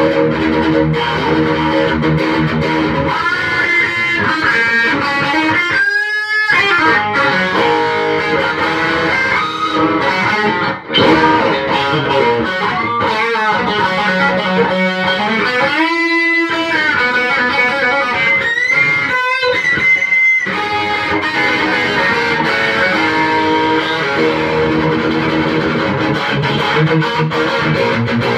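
Electric guitar with a FLEOR dual hot-rail ceramic pickup, played with the volume up full: continuous riffing and single notes. Twice, the whole sound bends down in pitch and back up.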